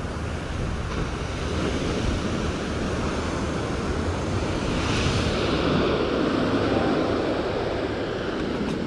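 Ocean surf: waves breaking and rushing in, the wash swelling louder about five seconds in.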